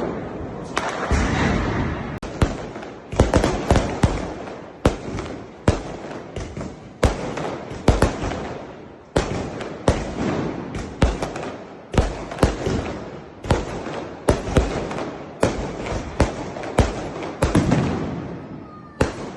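Fireworks going off in a continuous series of sharp bangs, about one or two a second, each trailing off briefly, over a constant noisy background.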